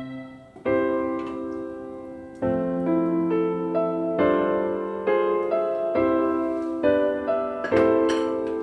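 Background piano music: slow, gently paced notes and chords, each ringing on and fading.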